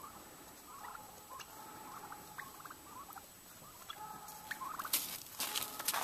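Faint, scattered calls of distant farm poultry, then louder crunching and rustling noises starting about five seconds in.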